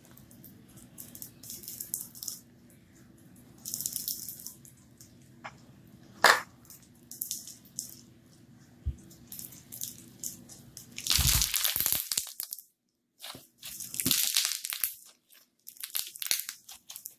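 Slime packed with foam beads being squeezed and stretched by hand, giving irregular crunching and crackling, loudest about eleven and again about fourteen seconds in, with one sharp click about six seconds in.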